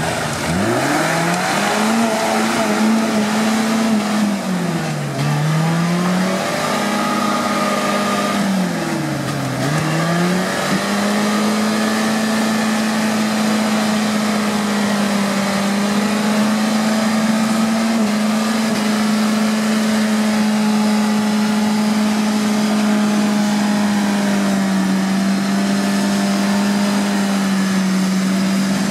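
Suzuki Samurai's engine revving up sharply, easing off and picking up again twice, then held steady at high revs as the jeep churns slowly through deep mud.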